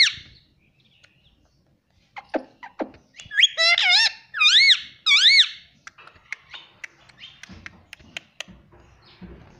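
Indian ringneck parakeet calling: after a short pause, two brief lower notes, then a run of four or five loud, squeaky calls whose pitch wavers up and down, followed by a few faint clicks.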